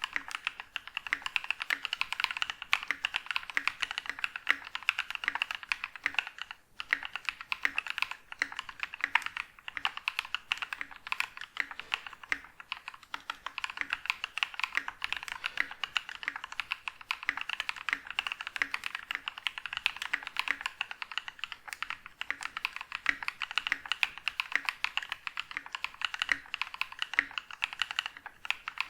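Mechanical keyboard fitted with lubed and filmed Novelkeys Cream linear switches being typed on quickly and continuously: a dense run of keystroke clacks, with a brief pause about six and a half seconds in.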